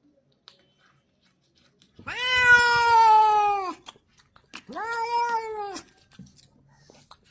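Domestic cat meowing twice: a long drawn-out meow about two seconds in, then a shorter one a second later, each dipping in pitch as it ends.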